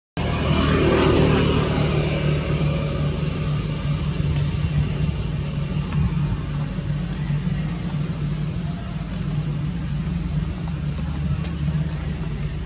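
A motor engine running steadily with a low hum. A louder rush of noise swells about a second in and fades over the next second or two.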